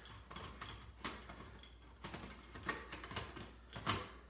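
Irregular plastic clicks and knocks from a smoke alarm being handled and fitted onto its mounting base, the loudest knock near the end.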